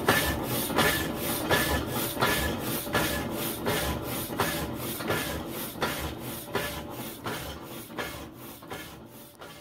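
Peerless power hacksaw with a 14 TPI blade cutting through a 1¼-inch ductile iron round: a rasp on each stroke, about one stroke every three-quarters of a second, over a steady hum from the machine. The sound gradually fades toward the end.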